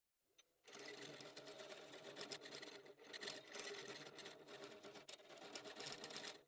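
A motor-driven workshop tool running: a steady motor hum under a rough, grainy grinding noise. It starts suddenly about half a second in and cuts off abruptly at the end.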